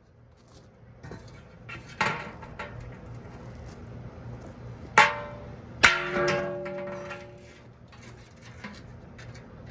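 A homemade saw-blade axe striking an armor target three times: a lighter hit about two seconds in, then two hard blows under a second apart. The last blow leaves a clear metallic ring that fades over about two seconds.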